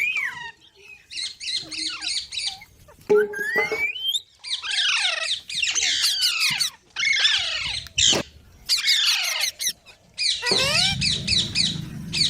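Baby green parrot chicks calling in repeated bursts of rapid, high, squeaky chirps and squawks, several overlapping, each burst lasting a second or two.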